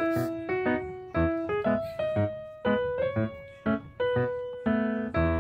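Background music: a light melody of separate struck notes over a steady low beat about twice a second.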